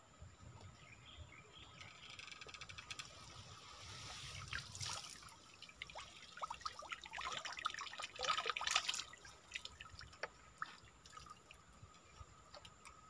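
Water pouring and dripping off a bamboo-framed lift net as it is hauled up out of a stream, with many small drips and splashes. It builds up, is loudest about seven to nine seconds in, then thins out to scattered drips.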